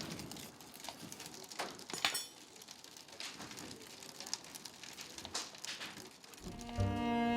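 Irregular crackling and pattering over a noisy hiss, with sharper cracks about 1.5 to 2 seconds in. Cello music comes in near the end.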